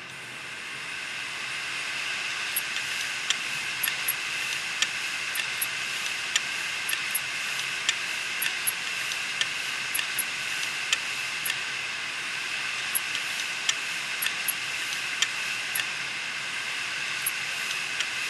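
An opened Western Digital 500 GB desktop hard drive running with its platter exposed. It builds up over the first couple of seconds to a steady whirring hiss, with irregular sharp ticks throughout. The heads are damaged beyond repair from flying over a damaged part of the platter.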